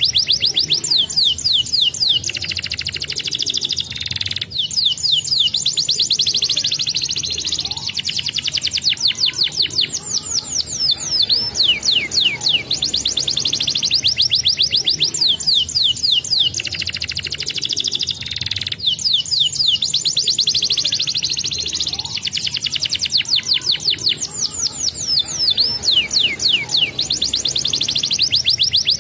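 Canary singing a long, unbroken song of rapid trills: fast runs of descending whistled notes, broken twice by a lower buzzing roll, a few seconds in and again about two thirds of the way through. It is a lure song (pancingan), played to prompt young canaries to start rolling.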